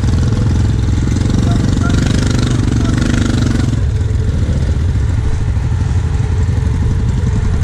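ATV engine idling steadily with a low drone. A second, higher-pitched engine-like sound rides over it for the first few seconds and stops about four seconds in.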